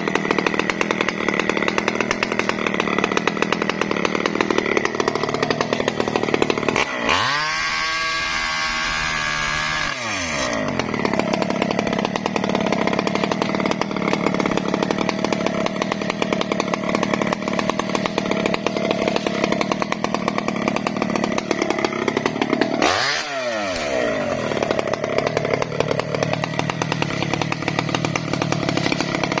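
Chainsaw running steadily as it cuts mahogany. About a quarter of the way in, the engine speed rises sharply, holds for about three seconds, then falls back. It dips and surges again briefly about three quarters of the way through.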